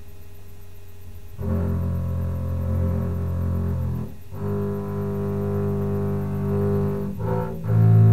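Double bass played with the bow: four sustained notes one after another, starting about a second and a half in. The first two are long, with a short break between them about four seconds in, then a brief note and a last note near the end that is the loudest.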